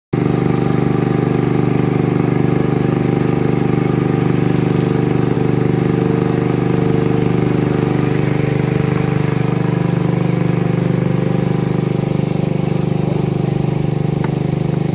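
Small wooden river boat's engine running steadily while the boat is under way.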